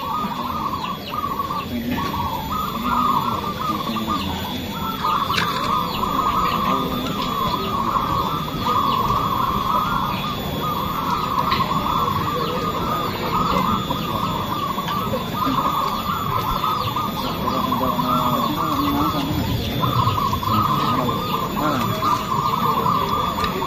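Chorus of many caged zebra doves (perkutut) cooing at once, their rolling coos overlapping into one dense mass of song with a few brief lulls.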